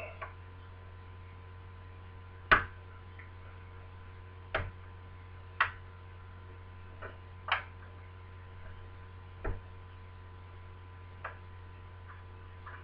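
Sharp, irregular metallic clicks and taps from lever-lock picking tools working the levers inside a lever deadlock in a door, one every second or two, the loudest about two and a half seconds in, over a steady low hum.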